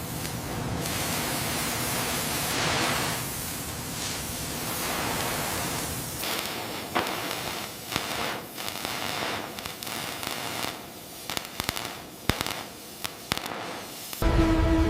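A steady hiss for several seconds, then scattered sharp crackles and clicks. Music with held tones comes in near the end.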